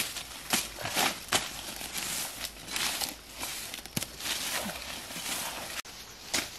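Irregular knocks and scrapes of a machete blade working into weedy soil, with dry leaves and stems rustling and crackling.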